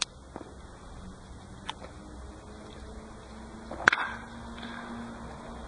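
A loud sharp crack about four seconds in, with two fainter cracks before it: a baseball bat hitting the ball in batting practice.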